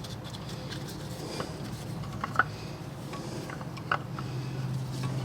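A brake caliper piston compressor tool being worked against the caliper to push the pistons back in: a few light metallic clicks, two of them sharper, about two and a half and four seconds in, over a steady low hum.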